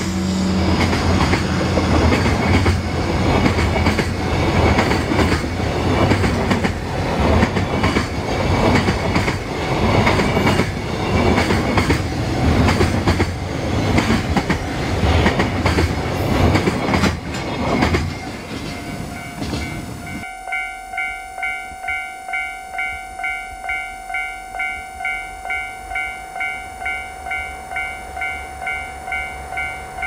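A long container freight train rolls past close by: a steady rumble, with wheels clacking rhythmically over the rail joints. It fades out about two-thirds of the way in. Then a railway level-crossing warning bell rings steadily, about two chimes a second.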